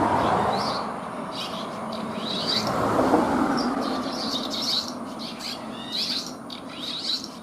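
Red-rumped swallows calling: short twittering chirps repeated through, over a steady band of background noise that fades somewhat after the first few seconds.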